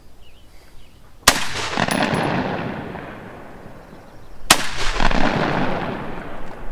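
Two single shots from an ATI Omni Hybrid AR-15 pistol firing 5.56 ammunition, about three seconds apart. Each shot is followed by a long echo that dies away over two to three seconds.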